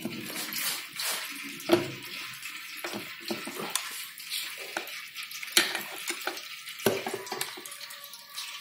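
Old engine oil trickling from the opened clutch side of a Royal Enfield Bullet engine into a steel bowl, with metallic clinks and a few sharper knocks from the cover and tools.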